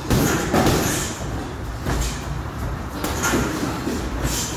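Boxing sparring: several irregular thuds and slaps of gloved punches landing, over a steady background of movement in the ring.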